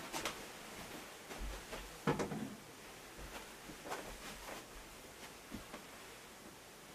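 Several soft knocks and thuds in a small room, the loudest about two seconds in, as a person moves about on foot.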